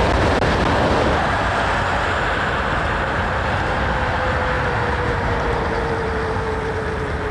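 Wind rushing over the microphone and road noise while riding a 72-volt e-bike, with a faint whine that slowly drops in pitch.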